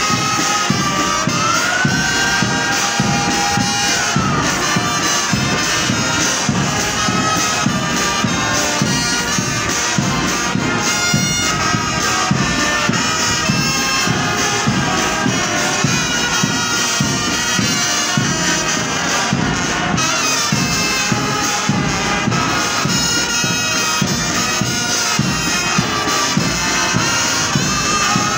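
Marching band playing: bass and side drums beating a steady rhythm under held notes from wind instruments.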